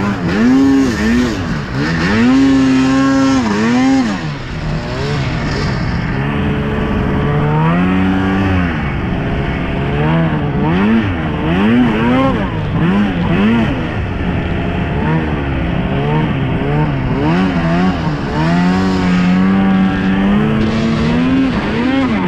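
Snowmobile engine revving up and down over and over as the throttle is worked while riding, its pitch rising and falling about once a second.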